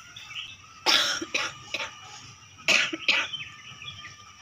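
A person coughing: a fit of about three coughs, then two more a second later.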